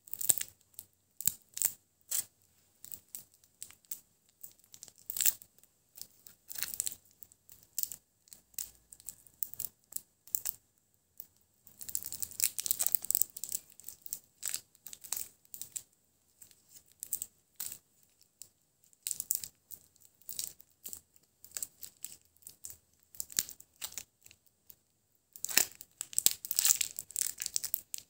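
Shiny plastic candy wrapper crinkling and tearing as a ball lollipop is unwrapped by hand, in irregular crackles that come thickest about halfway through and again near the end.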